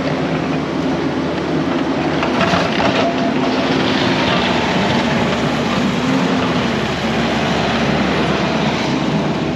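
Kubota SVL75 compact track loader's diesel engine running steadily under load, its pitch wavering slightly, with knocks and rattling from the machine working through the woods.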